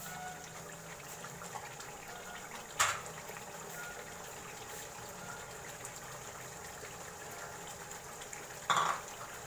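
Thick karahi gravy bubbling and sizzling steadily in a wok, with two brief louder noises, about three seconds in and near the end.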